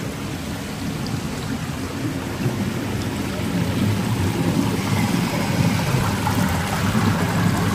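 Steady rush of running water, growing louder about two and a half seconds in.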